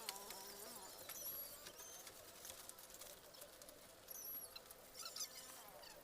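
Live chickens shifting about in a shipping box: faint scattered scratching and tapping. A pitched call fades out in the first second, and a few short high chirps come later.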